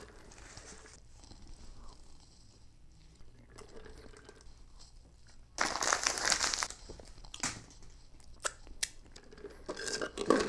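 Paper sandwich wrapper crumpling and crinkling in the hands, loudest in a burst about halfway through, with quieter chewing of a fried chicken sandwich around it.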